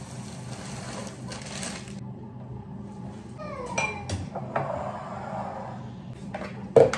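Kitchen breakfast sounds: a plastic bag of cereal rustling as cereal is poured into a ceramic bowl, then a drawer sliding and cutlery clinking. Near the end comes one sharp knock, the loudest sound, as the bowl is set down on the benchtop.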